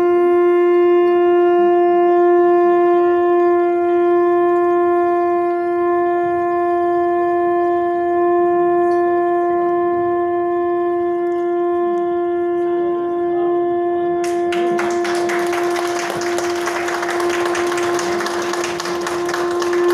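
Conch shells (shankha) blown in one long, steady, unbroken note held for about twenty seconds, stopping right at the end. From about fourteen seconds in, clapping starts under the note.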